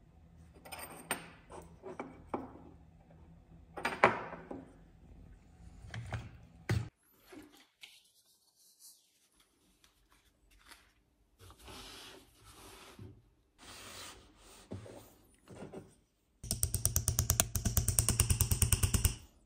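Clinks and knocks of small steel punches and tools being handled on a wooden bench, then, near the end, a chasing hammer tapping a steel chasing punch in a rapid, even run as it textures a copper-and-silver mokume gane sheet set in pitch.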